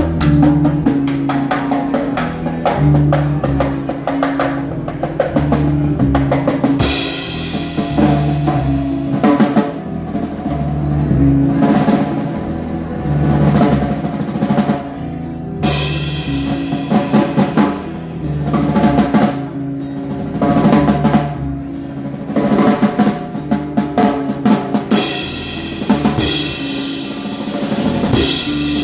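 A trio playing live instrumental music, with the drum kit to the fore: snare rolls and bass drum hits over a low line of held notes that move in steps.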